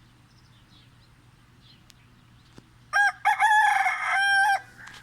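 A rooster crows once, a loud call of about a second and a half starting about three seconds in, broken by a couple of short gaps at its start.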